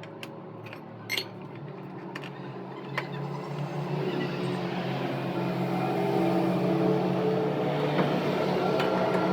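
A machine running with a steady, even hum that grows gradually louder, with a few metal clinks in the first three seconds.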